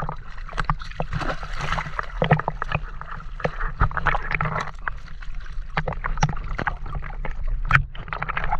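Sea water splashing and gurgling around a half-submerged camera as a large octopus's arms thrash at the surface, with many short sharp splashes and clicks over a steady low rumble.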